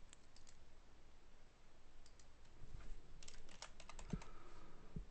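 Faint computer keyboard typing: a few scattered keystrokes, then a quick run of keys about three seconds in.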